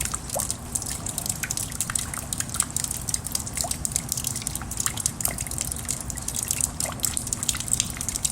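Rain dripping steadily: many separate drops ticking irregularly over a constant wet hiss.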